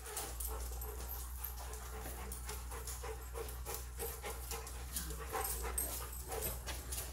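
Several dogs panting as they move about on a concrete floor, with frequent light clicks, over a steady low hum.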